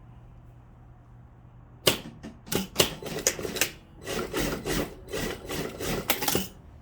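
Irregular clicking and clattering from hands-on sewing work on a dress, a quick uneven run of sharp taps and rustles that starts about two seconds in and stops near the end.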